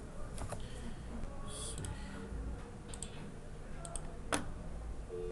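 Scattered clicks of a computer mouse and keyboard being worked, the loudest single click a little past four seconds in, over a low background hum.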